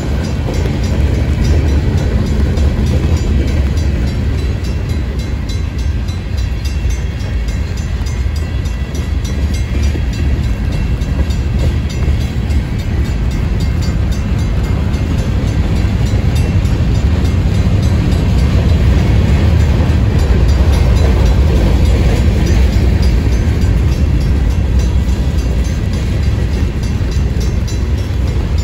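Freight train's tank cars and covered hoppers rolling past close by: a loud, steady rumble of steel wheels on the rails.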